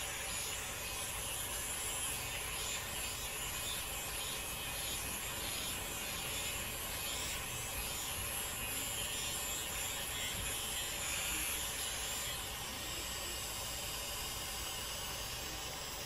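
Flawless 18K gold facial hair remover's small battery motor running with a steady, faint buzzing whir as the trimmer is worked over the skin of the neck. The sound changes and drops slightly about twelve seconds in.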